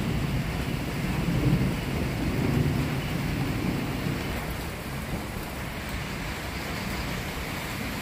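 Thunder rumbling, loudest in the first three seconds and dying away by about halfway, over a steady hiss of rain.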